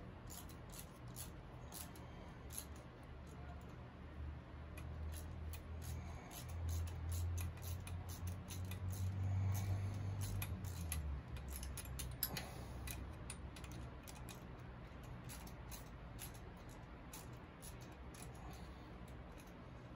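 Light, irregular metal clicks and scrapes as an intake manifold is worked into place between a Shovelhead V-twin's cylinder heads. A low hum underneath swells around the middle and fades a little past halfway.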